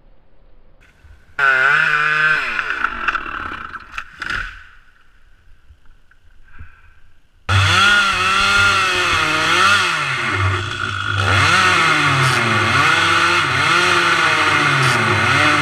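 Two-stroke chainsaw running close by. About a second and a half in it runs loud and its revs fall away over a couple of seconds; after a lull of a few seconds it runs again, revving up and down over and over, and cuts off abruptly at the end.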